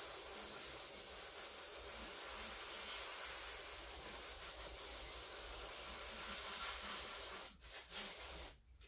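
Aerosol electric parts cleaner sprayed in one long steady hiss of about seven and a half seconds, then a short second burst near the end. It is cleaning out the area of the alternator where the brushes ride.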